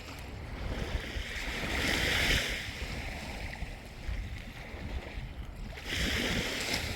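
Small waves washing up on a sandy beach, with two louder surges of surf about two seconds and six seconds in, over a low wind rumble on the microphone.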